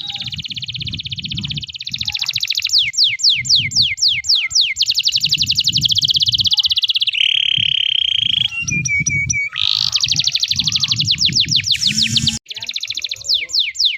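Domestic canary singing a long, unbroken song of fast trills, runs of quick downward-sweeping notes at about three a second, and a held whistle partway through. A low rumble runs underneath, and there is a brief drop-out near the end.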